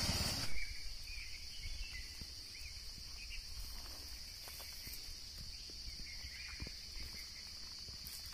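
Steady high-pitched drone of insects in the trees, with a few faint ticks. A motorcycle engine dies away in the first half second.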